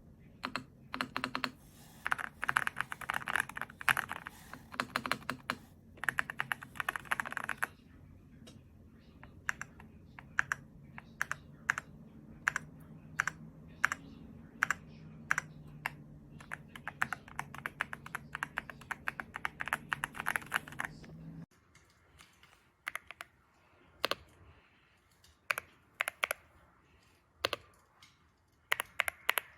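Mechanical keyboard with Crystal Ice switches and transparent keycaps being typed on: fast dense runs of key clicks for the first several seconds, then steadier typing. After about 21 seconds there are only scattered single keystrokes, with a low hum underneath stopping at that point.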